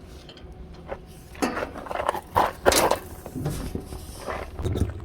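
Handling noises as a bungee cord is stretched and hooked on, made up of irregular scuffs and rattles. Louder scraping bursts come about a second and a half and two and a half seconds in.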